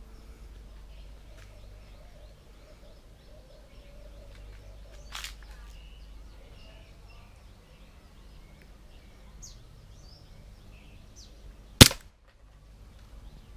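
Green-gas airsoft Glock 17 Gen3 pistol firing a single sharp shot near the end, over faint birdsong. A fainter sharp snap comes about five seconds in.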